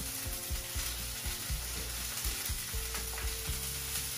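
Broccoli florets hitting hot olive oil and garlic in a frying pan and sizzling, with a wooden spatula stirring and knocking against the pan.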